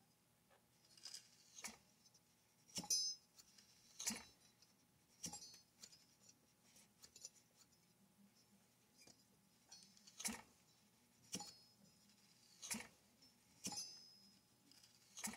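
Irregular, quiet metallic clicks and clinks, roughly one a second, some with a short ringing tail, as a hand screwdriver works screws on a bare two-stroke chainsaw engine. A faint low hum sits beneath.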